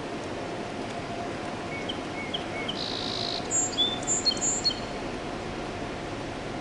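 A songbird calling: a run of short chirps, a brief buzzy note, then several high whistled notes, over steady background noise with a faint hum.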